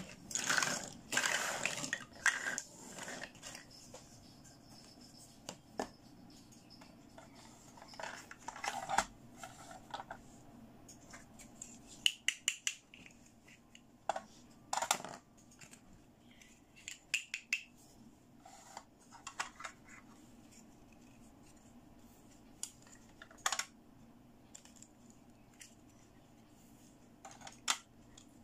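Small hard-plastic toy pieces handled by hand: scattered clicks, taps and light knocks as miniature cake slices are set into a plastic display case and its clear lid is fitted, with a denser spell of scraping and rustling in the first few seconds.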